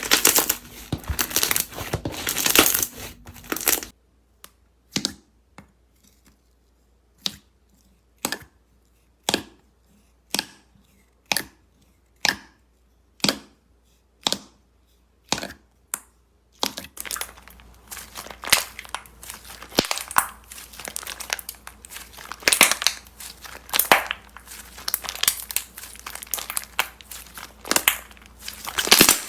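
Slime being squeezed and played with by hand, making crunchy, crackling sounds; for a stretch in the middle it gives single sharp pops about once a second, then dense crinkly crackling resumes.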